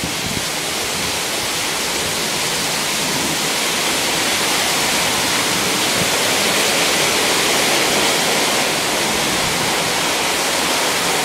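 Heavy storm rain pouring down, a loud, steady, unbroken hiss.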